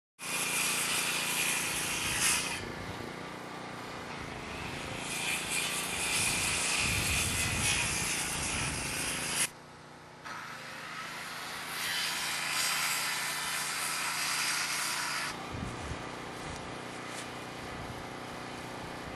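Steady machinery noise with a hiss that swells and fades, broken by a brief drop about halfway through.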